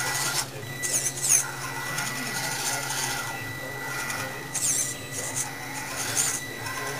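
Electric motor and gears of a Losi Mini rock crawler RC truck whining in three short bursts of throttle, each rising and falling in pitch, as its tyres scrabble over the rock course.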